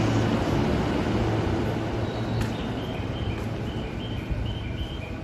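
Yokohama Line E233-6000 series electric train on the platform, its running noise and low motor hum slowly dying away. About halfway in, a high two-note chime starts, alternating steadily.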